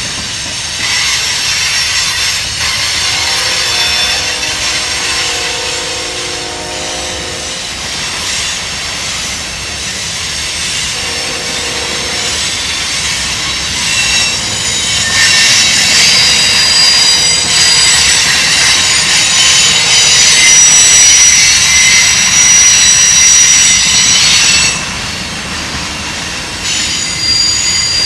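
Freight cars of a mixed freight train (tank cars and covered hoppers) rolling past on jointed track: a steady loud rumble of steel wheels on rail with high-pitched wheel squeal, loudest through the middle and later part and easing off near the end.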